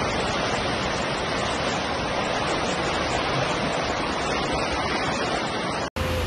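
Floodwater rushing across paved ground, a steady loud rushing noise. It drops out suddenly for a moment near the end, where another steady noise takes over.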